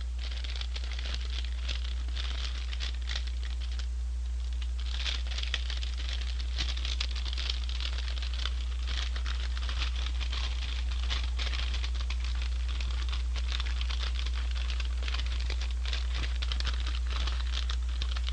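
Paper bag crinkling and rustling as it is handled and opened, a dense run of small crackles with a short lull about four seconds in, over a steady low hum.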